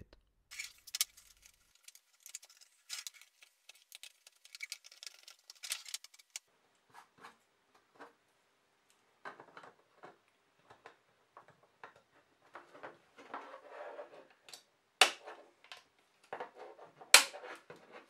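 A small blade scrapes and shaves the edges of a 3D-printed plastic opening in quick scratchy strokes, chamfering it so a snap-fit IEC power inlet will fit. This is followed by plastic knocks and handling as the connector is test-fitted, with two sharp clicks near the end.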